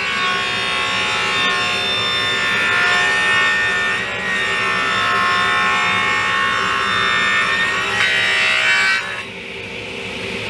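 Table saw ripping a pine 2x6 on edge, taking 3/8 inch off its thickness, the blade singing steadily as the board is fed through. About nine seconds in the cut ends and the saw runs on more quietly.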